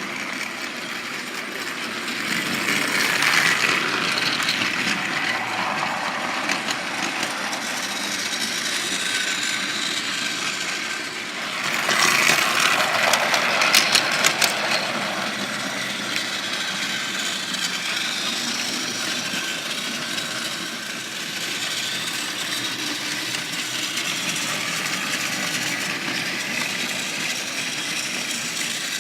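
Battery-powered Trackmaster toy train engines running on plastic track: a steady small-motor whir with wheels rattling over the rails. It swells twice as the trains come closer, the second time with a quick run of clicks.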